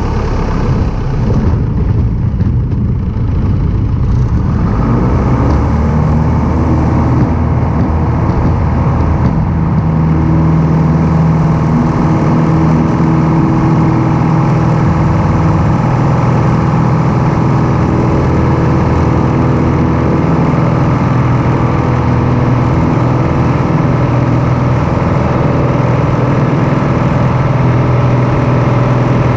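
Light aircraft's piston engine running, a loud steady drone that settles into an even pitch after about four seconds.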